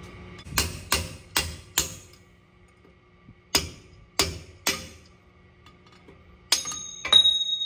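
Hammer blows on a steel punch driving a pinion bearing race out of a Ford 9.75-inch rear axle housing. There are four quick strikes, then three more, and near the end two hits that ring on with a sustained metallic tone.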